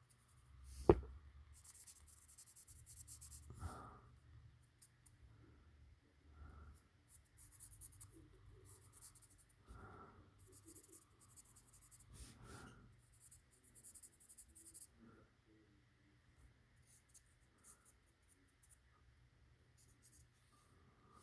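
Silver marker rubbing over a small wooden dowel in short scratchy strokes with pauses between them. A sharp click about a second in is the loudest sound, and a few soft knocks come later.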